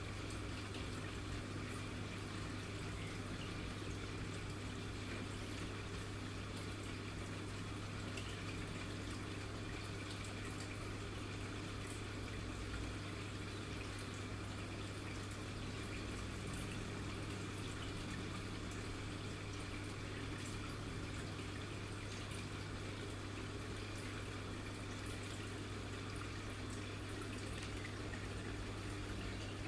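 Steady bubbling and trickling of aerated water in a small fish tank, with faint tiny pops, over a constant low hum.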